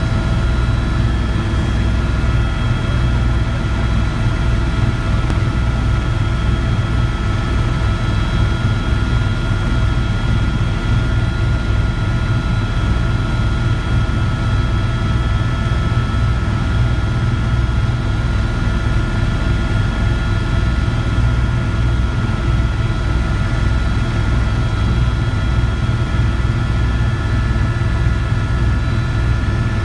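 Helicopter rotor and engine heard from inside the cabin: a steady low throb with a constant high whine over it.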